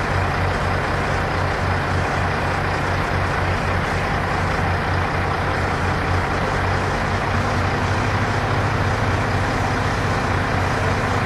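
Heavy diesel engines of a mobile crane and a semi tractor running steadily, a deep even drone with a strong low hum.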